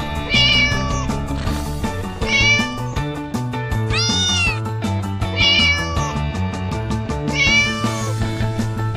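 Domestic cat meowing five times, a short meow every second and a half or so, over background music with a beat.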